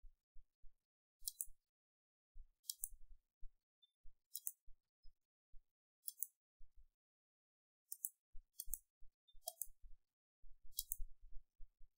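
Computer mouse button clicking about eight times, irregularly, a second or two apart, as objects are picked one by one for trimming, with soft low thuds in between.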